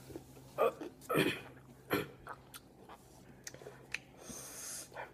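A boy coughs three short, sharp times in the first two seconds, then breathes with small mouth noises. The coughing comes from the burn of a very hot pepper he has just eaten.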